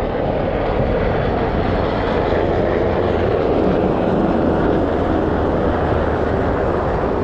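Helicopter flying by, its rotor and engine making a steady drone with a low hum.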